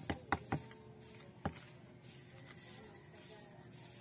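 Small plastic plant pot and a thin potting tool being handled while a succulent is set in soil: three quick sharp taps in the first half second and one more about a second and a half in.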